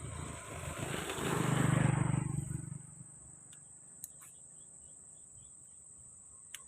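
A motor vehicle passes by, swelling to its loudest about two seconds in and fading away by three seconds.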